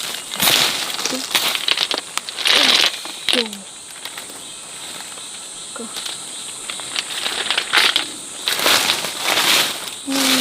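Steady high-pitched drone of forest insects, with repeated short bursts of rustling and crunching, quieter in the middle of the stretch.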